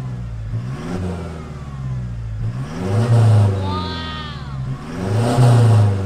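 Toyota Fortuner GR Sport's four-cylinder turbo-diesel revved from idle three times through a JTC titanium aftermarket exhaust, a quiet-tuned system. The first blip is light; the second and third, about two seconds apart, are stronger.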